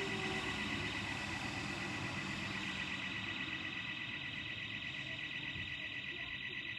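Burglar alarm sounding continuously: a high-pitched electronic tone with a fast warble.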